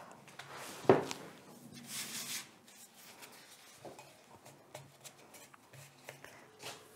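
Hands working pasta dough at a wooden table: a sharp knock about a second in, then a short brushing rub and a few light taps.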